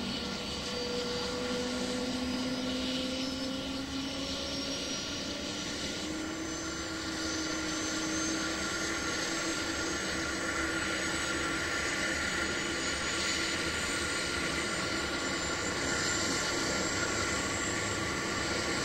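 Aircraft running with a steady whirring hum, its tones slowly rising in pitch.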